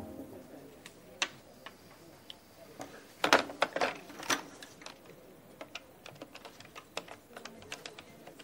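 Irregular light clicks and taps, with a louder cluster of clatter about three to four seconds in.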